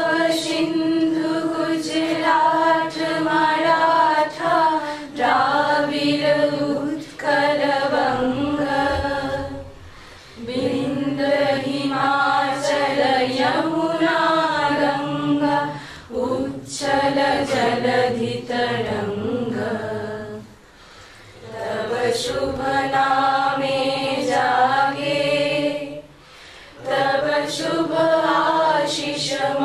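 Group of young women singing a national song in unison, unaccompanied, in long phrases with short breathing gaps between them.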